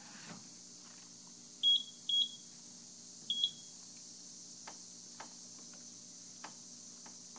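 Short, high-pitched electronic beeps from a Simplex fire alarm panel: four of them at uneven spacing, the last right at the end, like keypresses being acknowledged. A faint steady hum runs underneath.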